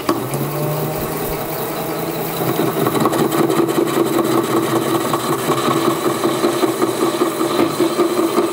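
Mini lathe starting up and running, spinning a brass bar held between chuck and live center, with a steady motor hum. From about two and a half seconds in, the sound grows rougher and pulses as a parting tool cuts into the brass. The parting cut is not going well.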